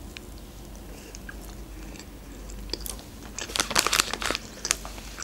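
Close-miked eating sounds of a soft sponge cake being chewed: quiet wet chewing with a few small clicks, then a dense run of crackly, crunchy strokes from about two and a half to four and a half seconds in.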